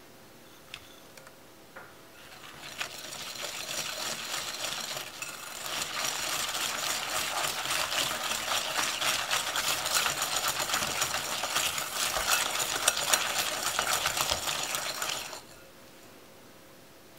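Wire balloon whisk beating butter and sugar in a glass mixing bowl, the wires clicking and scraping rapidly against the glass while the butter and sugar are creamed together. It starts about two seconds in, gets louder and faster, and stops abruptly near the end.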